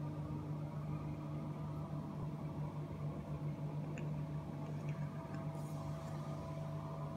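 Bathroom extractor fan humming steadily, with a faint click about four seconds in.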